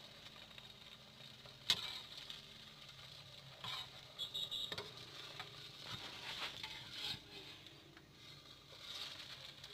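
Metal spatula scraping and knocking against a nonstick wok while battered lotus fries in a little oil with a faint sizzle. The sharpest knock comes just under two seconds in, with more clusters of scrapes around four to five seconds and seven seconds in.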